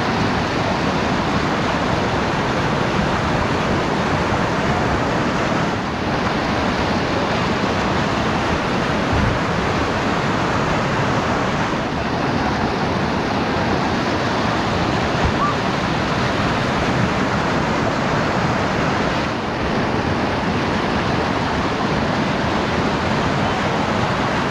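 Steady rush of whitewater pouring over a river ledge rapid.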